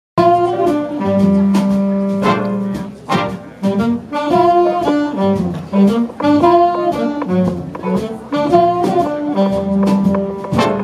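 Big band jazz played live: the saxophone section, trumpets and trombones play together over double bass and piano, in phrases of held chords punctuated by short accents. The music begins abruptly at the start.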